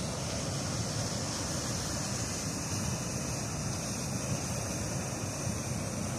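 Steady rush of fast, turbulent river water below a dam, an even, unchanging noise.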